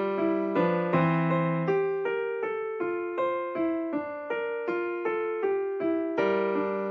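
Background music: a piano melody, notes struck about three a second, each fading before the next.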